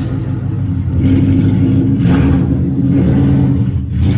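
Car engine running, getting louder about a second in and then holding steady.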